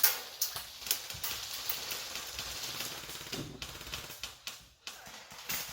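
Airsoft guns firing across the field: rapid, irregular clicking pops, densest in the first couple of seconds.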